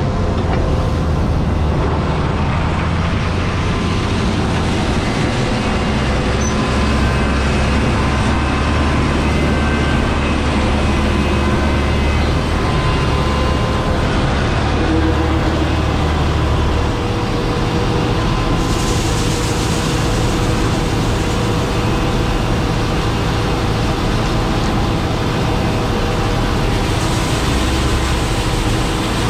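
Combine harvester running steadily while harvesting wheat: a continuous engine and machinery drone with several steady whining tones, its low hum shifting slightly about halfway through.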